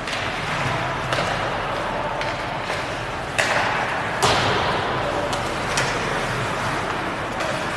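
Ice hockey play: sharp knocks of sticks and puck, with two louder cracks near the middle, over the steady noise of the rink.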